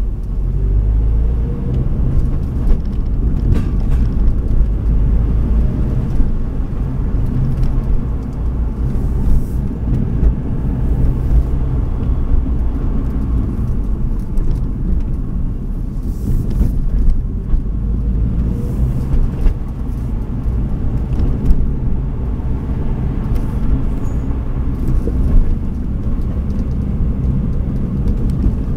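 Subaru Impreza WRX STI's turbocharged flat-four engine and tyre noise heard from inside the cabin while driving a winding mountain road: a steady low drone that shifts in pitch as the car slows and speeds up through the bends, with a few light clicks and knocks from the road surface.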